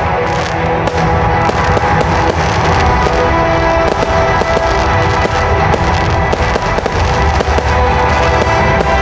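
Aerial fireworks bursting and crackling, many sharp bangs and pops in quick succession, over music playing throughout.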